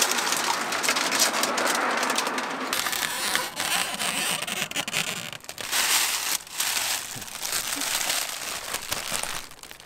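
Window tint film being peeled off the glass and crumpled by hand: dense crackling and crinkling of thin plastic film, fading out near the end.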